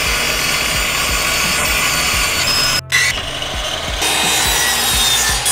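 Power saws cutting wood: a table saw runs through a board, cuts off suddenly just under three seconds in, and a miter saw cutting takes over.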